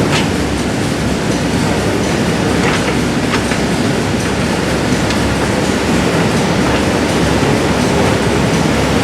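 Steady, loud industrial machinery rumble with a few faint clanks, typical of a heat-treatment furnace line running.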